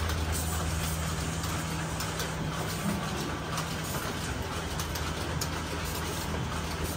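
Milking parlour machinery running: a steady low hum over a hiss of air, with a few faint clicks.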